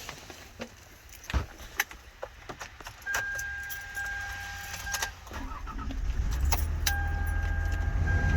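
Keys jangling and clicking as a van is got into, with a steady electronic warning chime sounding for a couple of seconds. About halfway through the van's engine starts and keeps running at idle while the chime comes back on.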